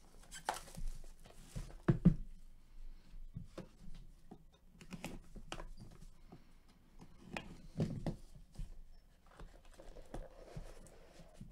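Gloved hands handling a cardboard trading-card box and a stack of cards: scattered light taps, clicks and rustles of card stock, with the loudest knocks about two seconds in and again around eight seconds.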